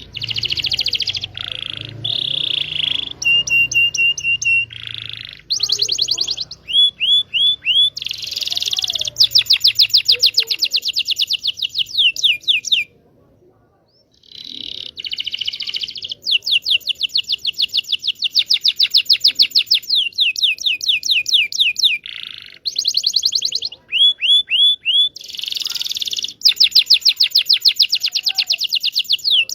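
Domestic canary (local Indonesian kenari) singing a long song. It is made of phrases of rapid, repeated down-sweeping notes and buzzy trills, with one short break about halfway through.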